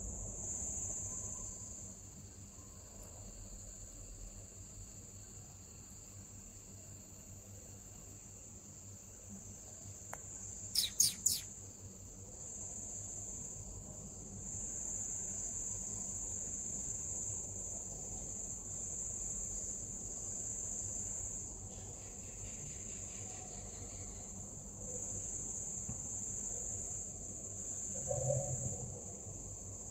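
Night crickets trilling steadily at a high pitch, with three quick, sharp, high chirps about eleven seconds in and a brief low sound near the end.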